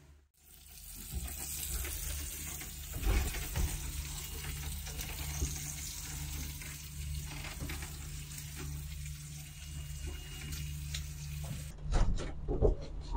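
Water running from a galley tap into a sink, a steady wash with a few light knocks, over the steady low hum of the boat's engine.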